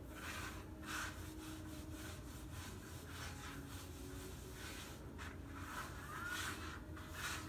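Grout being rubbed by hand across the tiles of a mosaic panel: a rhythmic scraping, about two strokes a second, over a steady low hum.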